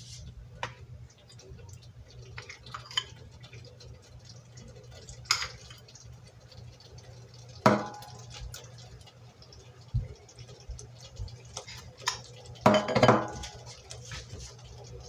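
A spoon clinking and scraping against a cooking pot as peanut butter is added, with a few sharper knocks over a low steady hum.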